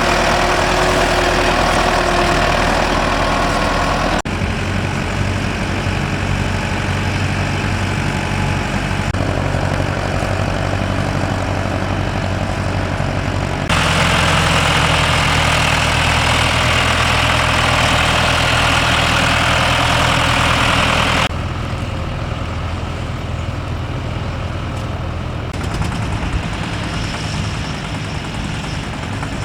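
Tractor engines running steadily, the sound changing abruptly about five times as it cuts between different tractors.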